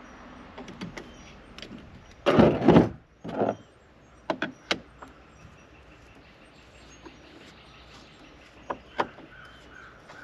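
Cordless drill/driver run in a short burst about two seconds in, then briefly again, followed by a few sharp clicks of tools and parts being handled at a boat's steering wheel hub.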